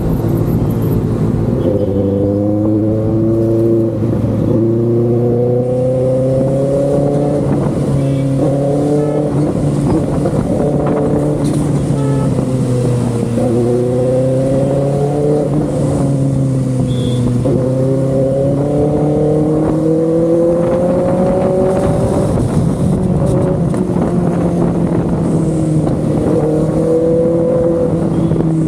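Benelli TNT 600i inline-four motorcycle engine and exhaust running. Its pitch climbs slowly and falls back several times, as in accelerating through the gears.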